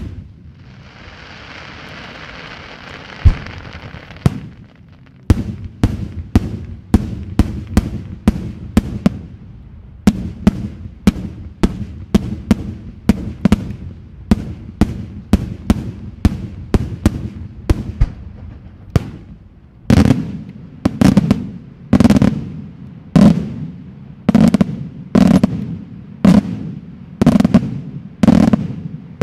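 Daytime aerial fireworks: a bang and a few seconds of hissing, then a long run of sharp shell bursts at about two a second. From about two-thirds of the way in the bursts are louder and echo.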